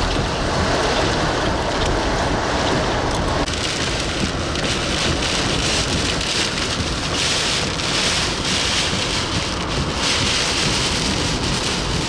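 Heavy wind-driven rain in a severe thunderstorm, with strong wind gusting in surges. The sound shifts abruptly about three and a half seconds in.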